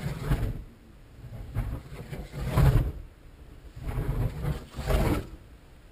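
Kinetic K2M dynamic soaring glider whooshing past on each lap of its loop: about five rising-and-falling swells, roughly one a second, the loudest about halfway through.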